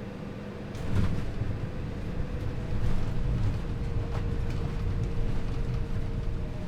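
Cabin noise of an Embraer E175 jet airliner descending to land: a steady hum from its CF34 turbofans with a low rumble. About a second in comes a thump, after which the rumble grows louder and rougher, with scattered rattles.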